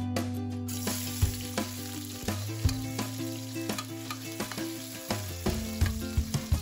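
Chopped onion and garlic sizzling in hot oil in an aluminium wok, starting about a second in, with a metal ladle clicking and scraping against the pan as it stirs.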